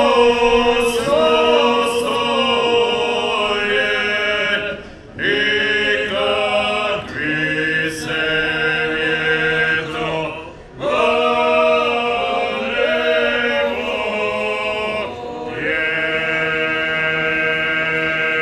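Male vocal group singing a traditional folk song unaccompanied in close harmony, in phrases of a few seconds each, with short breaks between them and a low held note under some phrases.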